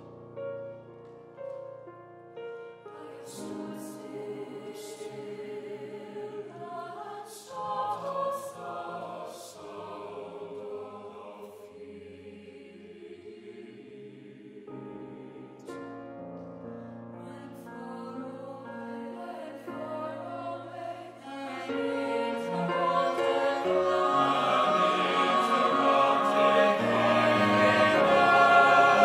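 Mixed SATB choir singing classical chamber music with piano and cello accompaniment, growing louder toward the end.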